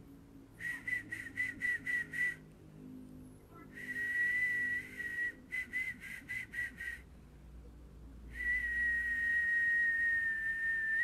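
A person whistling one high note, with breath audible around it. First comes a run of about seven short whistles at roughly four a second, then a held whistle, then another run of short whistles, and last a long held whistle that sags slightly in pitch.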